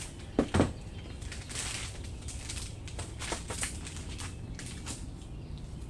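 Two loud knocks close together about half a second in, then rustling and scattered light clicks: a string trimmer's drive shaft and parts being handled on a workbench.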